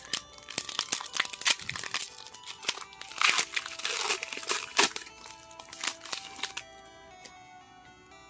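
Foil Pokémon booster pack wrapper being opened and handled: a dense run of crinkling and crackling that stops about two-thirds of the way through, over quiet background music.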